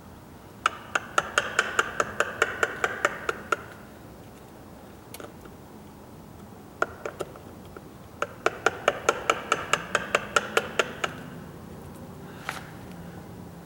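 Hammer tapping a wood chisel in two quick runs of about a dozen light, ringing strikes each, about five a second, with a few single taps between, paring out wood a little at a time for a deadbolt.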